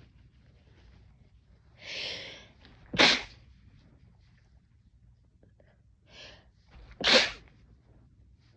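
A person sneezing twice, about four seconds apart. Each sneeze is a sharp, loud burst that follows a breathy intake of breath about a second before it.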